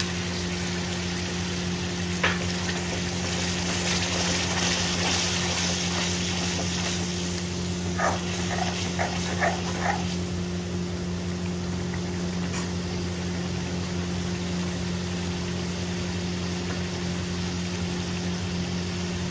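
Tomato paste frying in hot oil with onion and spice paste: a steady sizzle, strongest in the first half, with a spatula stirring and scraping the pan a few times. A steady low hum runs underneath.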